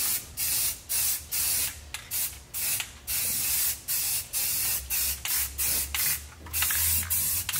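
Aerosol spray paint can sprayed in about a dozen short hissing bursts, a few of them held for nearly a second.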